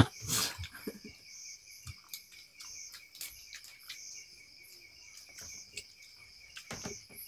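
Insects, likely crickets, chirping steadily in a fast pulsing trill, with faint scattered clicks from people picking food from a bowl by hand.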